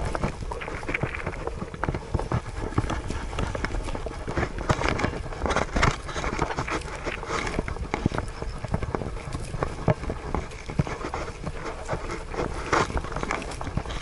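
Irregular knocks and rattles of an action camera strapped to a Siberian husky as the dog trots over grass, its steps and movement jolting the mount.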